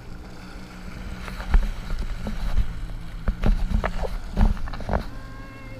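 Jet ski engine running with a steady low hum. From about a second in, a rapid series of sharp thumps and splashes from the hull and water slapping.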